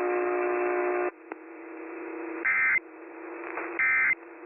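A steady buzz that cuts off about a second in, then a faint hum under two short, high data-tone bursts about a second apart: the Emergency Alert System end-of-message (SAME EOM) signal closing the broadcast warning.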